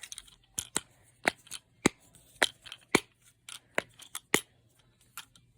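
Simple dimple fidget toy being pressed: its bubbles click one after another, a dozen or so sharp, irregularly spaced pops.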